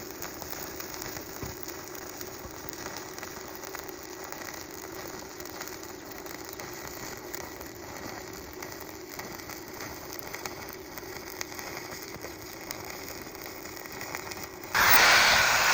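Electric arc welding: the steady crackle and sizzle of a running arc. Near the end a much louder steady rushing noise starts suddenly.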